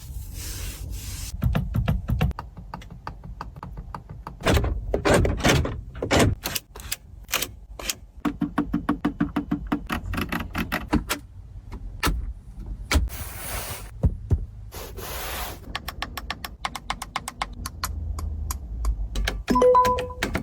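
Mercedes-AMG G63 doors, latches and switches being worked: a run of sharp clicks and thunks, with a few short electric motor runs in between. Two short beeps come near the end.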